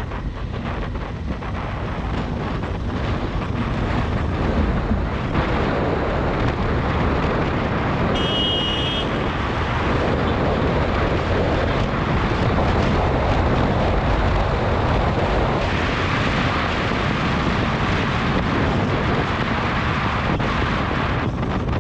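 Wind buffeting the built-in microphone of a GoPro Hero 7 on a moving motorcycle, with the bike's engine and tyre noise underneath. The noise grows louder over the first few seconds, then holds steady. About eight seconds in there is a brief high-pitched beep.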